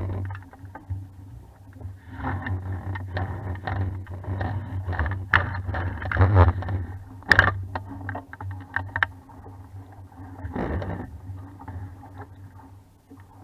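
Sounds of a 420 sailing dinghy under way: water noise along the hull over a steady low rumble, with many scattered knocks and clatters from the boat.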